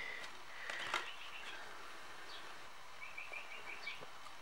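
Faint bird chirping: a quick run of about five high chirps about three seconds in, over low background noise. A light click about a second in.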